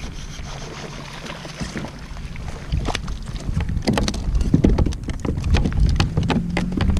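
Wind buffeting the microphone over a rumble of kayak and water noise. From about three seconds in come many sharp clicks and knocks of gear being handled on the kayak, and near the end a steady low hum joins in.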